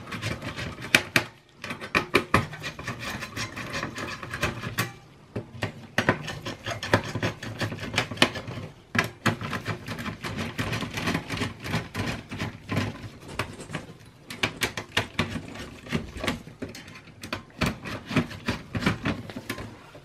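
Phillips screwdriver turning out the screws of a Dell OptiPlex CPU cooler: many irregular clicks and a rasping scrape of the driver in the screw heads, with handling of the metal heatsink. There are brief pauses about a second and a half in and again near five seconds.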